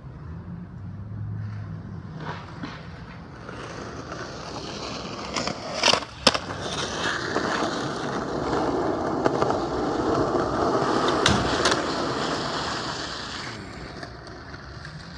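Skateboard wheels rolling over pavement, building up and then easing off, with sharp clacks of a board striking the ground about six seconds in and again near eleven seconds.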